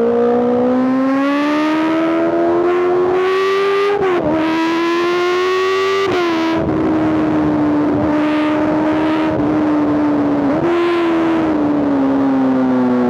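Honda CBR650R inline-four through an Arrow Race-Pro exhaust under way: revs climb, drop at upshifts about four and six seconds in, then hold steady while cruising. About eleven seconds in the revs jump briefly and then fall away, as on a downshift and slowing.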